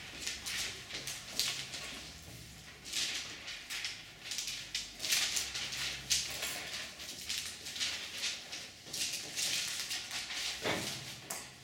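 Irregular rustling and light tapping sounds, with one heavier knock near the end.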